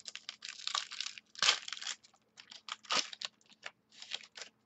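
Trading cards being handled: irregular rustling, sliding and crinkling of cards and pack wrappers, with louder swishes about one and a half and three seconds in.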